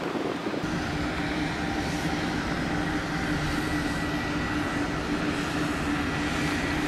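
Train locomotive running steadily: an even rumble with a steady low hum, starting about half a second in.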